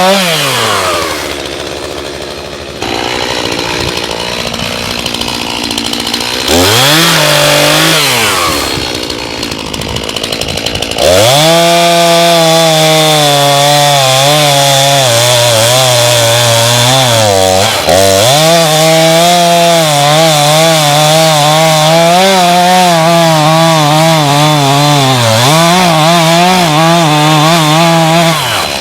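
Chainsaw dropping from high revs toward idle at the start and giving a short rev near the middle, then running at full throttle under load from about eleven seconds in, cutting into a rotten chestnut tree. Its pitch wavers as it cuts, with two brief dips in speed.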